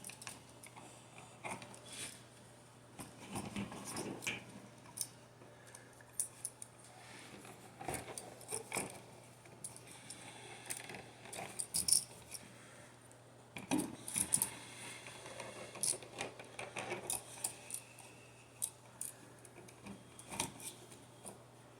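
Irregular small clicks, taps and light scrapes from hands working a wall receptacle and its stiff copper wires, metal parts knocking lightly now and then.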